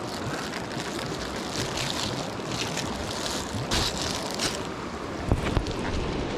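Steady rush of flowing water with wind buffeting the microphone, and two sharp knocks about five seconds in.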